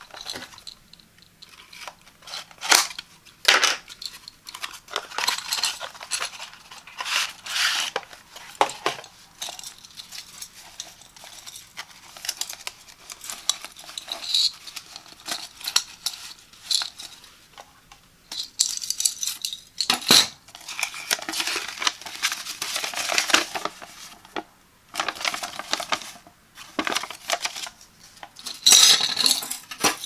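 Close-up handling sounds of a portable door lock being unboxed: a cardboard box opened and tapped, a fabric drawstring pouch rustling, and sharp metallic clinks of the lock's steel plate and chain. The clicks and rustles come in quick irregular bursts, with the loudest near the start, around the middle and near the end.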